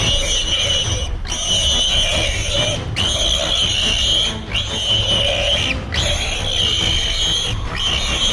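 A wild animal calling harshly, six calls of about a second and a half each with short breaks between them.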